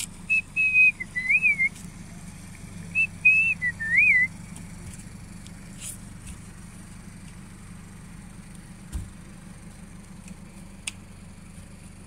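Two loud whistled phrases in the first four seconds, each a held note ending in a quick up-and-down warble, over a steady low motor hum.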